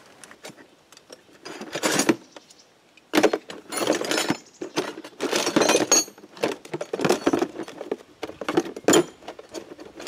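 Irregular metallic clinks and rattles of hands working the wire connectors and terminals of a tractor's ignition solenoid, with rustling between them.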